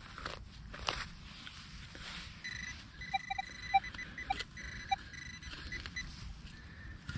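Electronic signal tones from metal-detecting gear: a high pulsing buzz from about two and a half to six seconds in, with five short lower beeps in between, as a target is located in the dug soil. A couple of knocks near the start.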